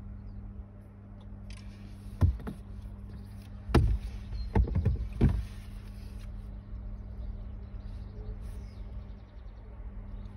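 Car engine idling with a steady low hum, heard from inside the cabin, with a handful of sharp knocks between about two and five seconds in.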